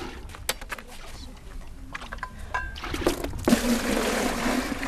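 A few light knocks and clicks, then from about three and a half seconds in, water pouring and splashing as it is drawn from a well into a bucket.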